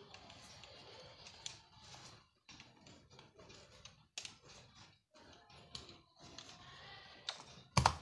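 Small irregular clicks and scrapes of metal parts being handled on a mixer grinder motor under reassembly. Near the end comes one sharp metal knock as the T-handle wrench is set down on the bench.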